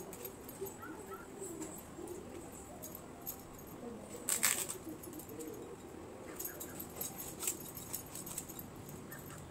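Kitchen knife peeling a piece of pumpkin by hand, with faint scraping taps of the blade on the rind and one louder scrape about four and a half seconds in.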